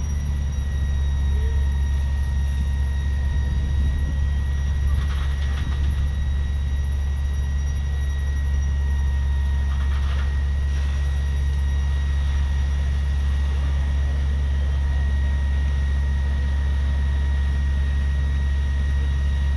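Fire engine's diesel engine running steadily at pumping speed to supply the hose lines and ladder nozzle: a loud, even low rumble with a faint steady whine above it.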